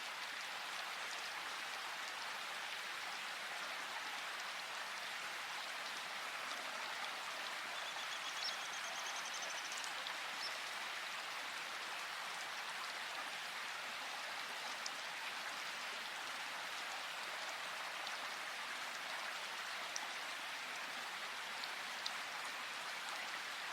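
Steady rain falling through forest, an even patter of drops with a few sharper drips. A faint high trill sounds briefly about eight seconds in.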